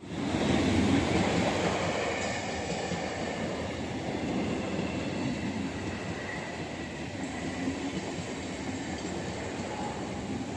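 Brand-new EMU electric local train running past: a steady rumble and rush of wheels on rail with a faint high whine over it. It starts abruptly and is loudest in the first couple of seconds.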